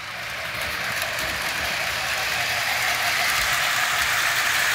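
Model steam locomotive with a single motor running along the track with its freight cars: a steady mechanical whir and rattle that grows gradually louder as it comes closer.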